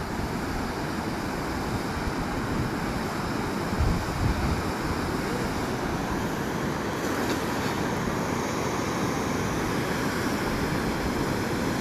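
Steady outdoor rush of wind and water noise, with wind buffeting the microphone and a couple of brief low thumps about four seconds in.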